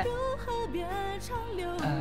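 Background music from a Mandarin pop ballad: a wavering melody line over steady held chords.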